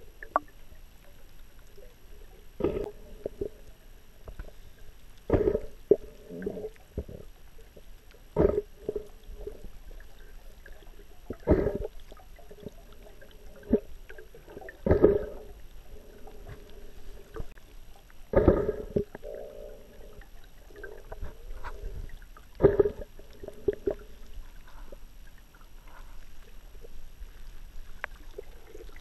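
Muffled underwater thumps about every three seconds, with low gurgling between them, heard through a submerged camera's waterproof housing.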